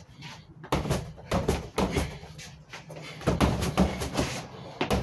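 Punches and strikes landing on a freestanding punching bag: a string of irregular thuds, some in quick clusters of two or three.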